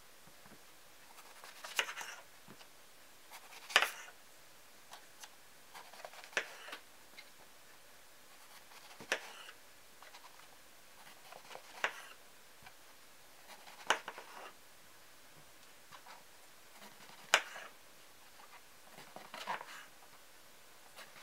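A paring knife slicing through a raw eggplant and tapping the cutting board, about eight cuts spaced roughly two seconds apart. Each cut is a soft crunch through the flesh ending in a sharp tap, as the eggplant is cut into wedges.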